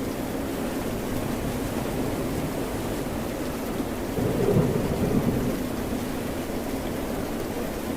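Steady rain and ocean surf, with a low rumble swelling up about four seconds in and fading a second and a half later.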